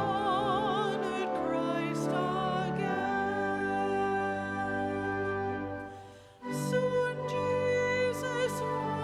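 A singer with a wide vibrato sings over held, sustained instrumental chords. The music dies away briefly about six seconds in, then comes back in.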